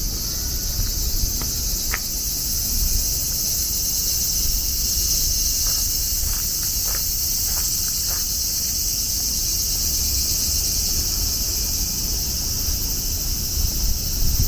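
Cicadas buzzing in a steady, high-pitched chorus, over a low rumble of wind on the microphone.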